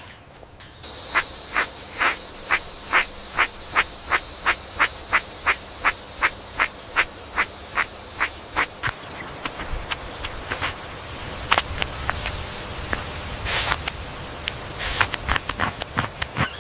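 Insects calling: a steady high buzz with evenly spaced chirps about three a second, giving way to irregular clicks in the second half.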